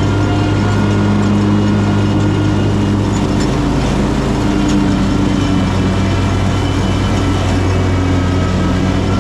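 Exmark X Series riding mower running steadily at working speed, its engine and blades cutting tall, thick grass. The engine note dips slightly about three and a half seconds in, then settles again.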